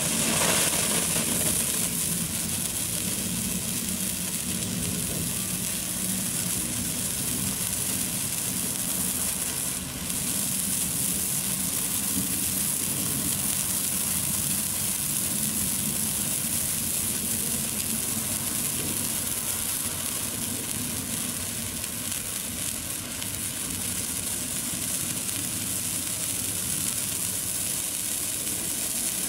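Morning glory stick sparkler burning with a red flame, giving a steady hiss of spraying sparks. It flares up suddenly at the start and dips briefly about ten seconds in.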